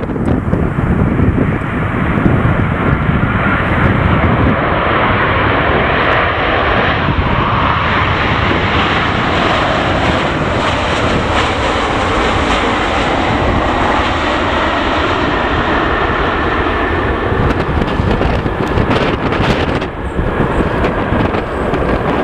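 An airliner's engines passing close by, the noise swelling and with a pitch sweep around the middle as it goes past. Gusty wind buffets the microphone underneath.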